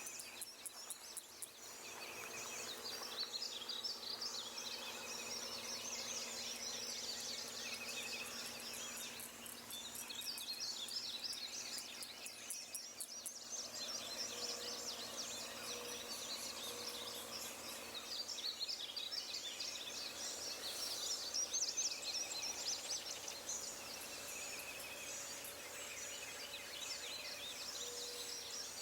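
Night-time outdoor animal chorus: dense, continuous high chirping, with a short trill repeating every couple of seconds beneath it.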